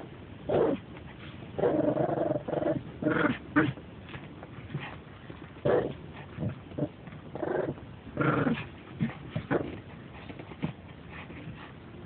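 Dog play-growling at a plush toy in a series of short growls, with one longer growl about two seconds in.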